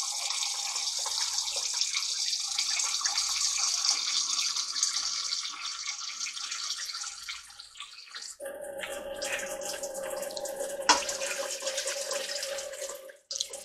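Kitchen tap running for several seconds, then water poured from a glass cup into a stainless steel pot of chicken pieces, the splashing carrying a steady ringing note, with one sharp knock near the end.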